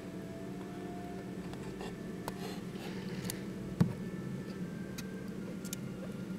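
Soft rubbing and scratching of a hand massaging a guinea pig's fur, with one sharp click about four seconds in, over a steady low hum.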